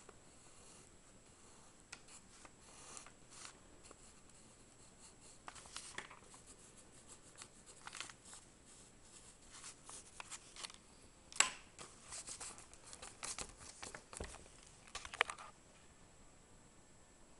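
Pencil lead scratching across paper in many short, quick strokes, laying in fur lines on a drawing. The strokes start about two seconds in and stop near the end, with one louder scrape midway.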